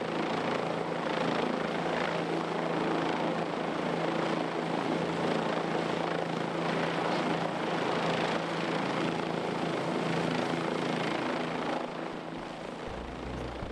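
Helicopter hovering close overhead with a sling load attached: steady rotor and engine noise, easing off a little near the end.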